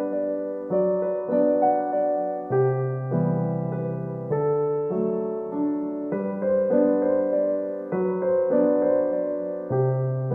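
Background music: a gentle electric piano playing slow, sustained chords and notes.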